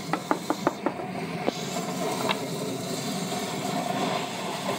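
A quick run of about seven light taps in the first second and a half, then a single tap or two, over a steady background hum.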